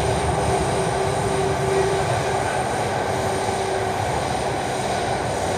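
Steady rumble of a metro train running, heard from inside the carriage, with a faint steady tone over the noise.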